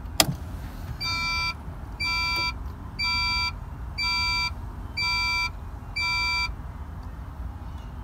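Honda CRX dashboard warning chime beeping six times, about once a second, after the ignition key is switched on; a click of the key turning comes just before the beeps.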